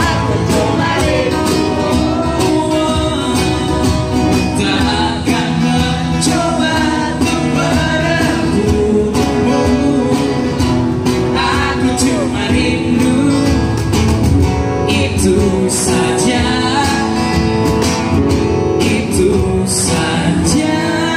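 Live acoustic band: a man singing over two acoustic guitars, with a cajón keeping a steady beat.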